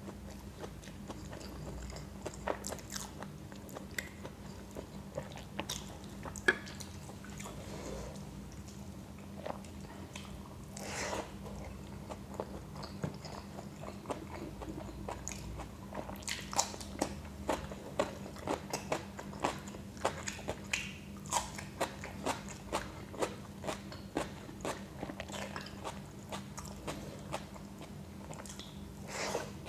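Close-miked eating: a person chewing and crunching a mouthful of tawa pulao rice and salad, with lip and mouth clicks. About halfway through the chewing settles into a steady rhythm, a little under two chews a second.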